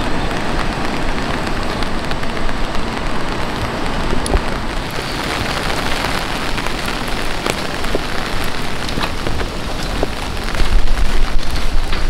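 Heavy rain falling steadily, with scattered single drop ticks; a louder low rumble comes in near the end.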